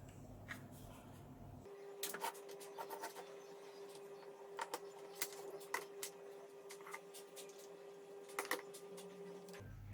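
Irregular sharp clicks and taps over a steady faint hum, which starts and stops abruptly a couple of seconds in and just before the end.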